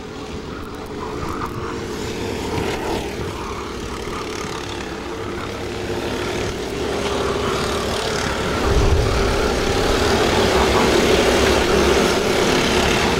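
Several racing kart engines running at speed around the track, a steady droning whine that grows louder as karts pass close by. A low rumble comes in about two-thirds of the way through.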